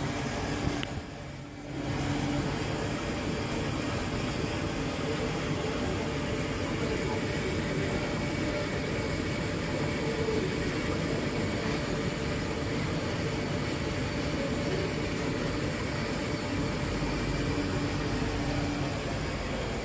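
Sodick A535 wire EDM machine running: a steady hiss of dielectric water flushing at the wire guide, with a faint machine hum. The noise dips briefly about a second in.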